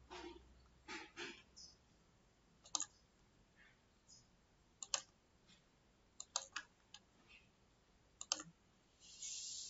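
Computer mouse and keyboard clicks, faint and a second or two apart, with a quick run of three around the middle, then a brief soft hiss near the end.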